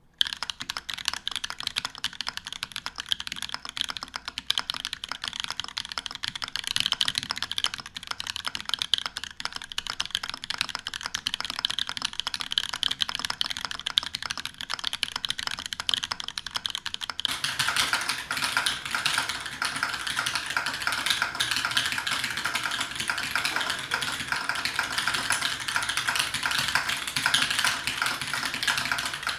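Continuous fast typing on a TGR Alice mechanical keyboard with Holy Panda tactile switches, a copper plate, polycarbonate case and GMK keycaps, a dense stream of keystrokes. About two-thirds of the way through the sound changes, becoming fuller and a little louder.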